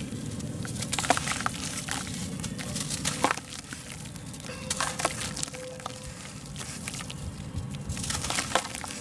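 Dry sand-and-cement block being squeezed and broken apart by hand: irregular gritty crunching and crackling, with a few sharper snaps about a second in, at about three seconds, and near the end.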